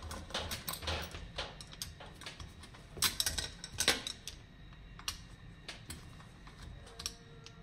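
Small metallic clicks and ticks of a T-handle hex key turning the brake-caliper bolts loose on a hub-motor wheel, with two louder metal clinks about three and four seconds in.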